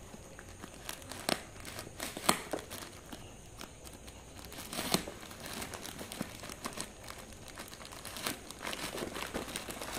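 Black plastic parcel wrapping and packing tape crinkling and tearing as a folding knife slits the parcel open, with a few sharp snaps of the plastic.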